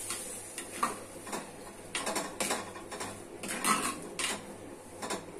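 Metal spoon stirring in a clay cooking pot, with irregular knocks and scrapes against the pot as water is mixed into the fried spice masala.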